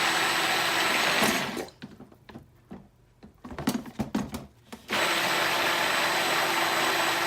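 Stick blender running in two short bursts through soap batter. The first burst stops about a second and a half in. Then come a few seconds of light knocks and clicks, and the blender starts again about five seconds in and cuts off near the end.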